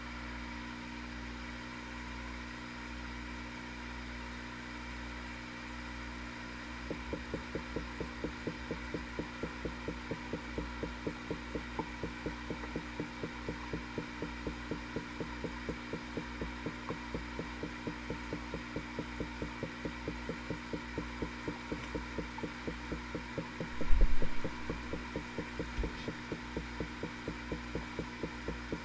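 Air bubbling up through water in a porthole bubble display, over a steady hum. Several seconds in it settles into a regular bubbling pulse about three or four times a second. One louder thump comes about two-thirds of the way through.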